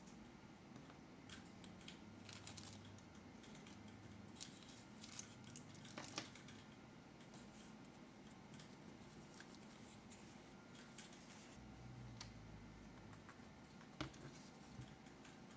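Faint, scattered clicks and light handling noise from a keyboard and its packaging being handled, with a few sharper clicks about six seconds in and near the end.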